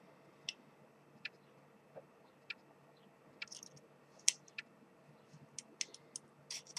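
Faint, scattered small clicks and taps of LEDs being handled and their leads pushed through the holes of a circuit board, the clicks coming more often in the second half.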